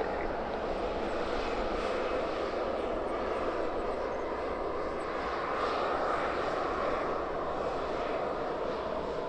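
Airliner engines of an aircraft arriving to land: a steady rushing noise with an engine tone that drops slightly in pitch in the second half.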